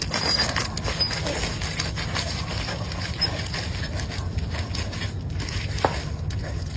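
A dog digging in soft, wet dirt with its front paws: rapid scraping strokes and loose dirt pattering down, over a steady low rumble.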